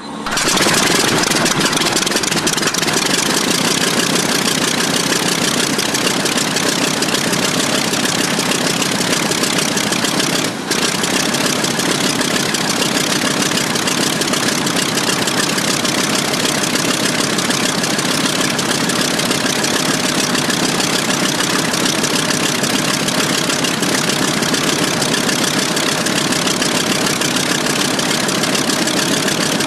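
The A6M5 Zero's original Nakajima Sakae 31 fourteen-cylinder, two-row air-cooled radial engine running steadily just after start-up, a sharp, unusual engine note. Its level drops briefly about ten seconds in.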